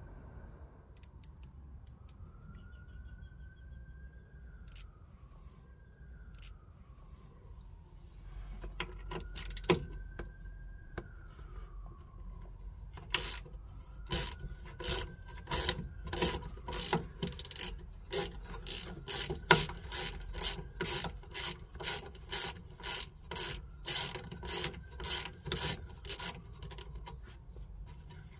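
A steady run of sharp metallic clicks, about two a second, starting about halfway through, as the brake pipe's flare nut is worked onto the rear wheel brake cylinder.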